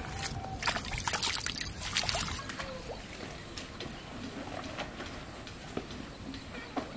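Water splashing and sloshing in a shallow plastic tub holding live catfish: a flurry of quick splashes and knocks in the first couple of seconds, then quieter trickling and the odd drip or tick.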